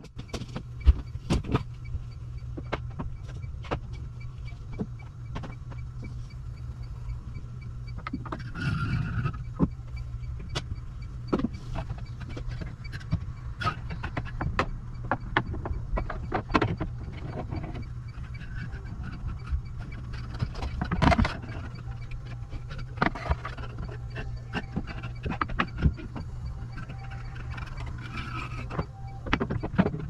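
Steady low mechanical hum with irregular clicks and knocks over it, and a faint, evenly repeating high tick.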